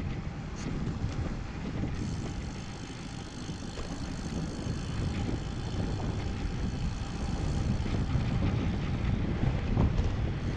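Wind buffeting the microphone of a camera on a moving road bike, a steady gusty rumble that slowly grows louder.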